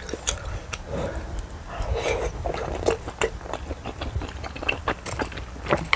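A person chewing a mouthful of spicy tteokbokki in sauce: wet, sticky mouth sounds with frequent sharp smacks and clicks.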